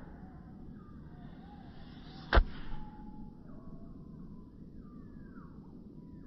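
An EK Blade 175 lb crossbow fires once about two seconds in: a single sharp snap with a deep thump and a short decay. Faint chirps run underneath.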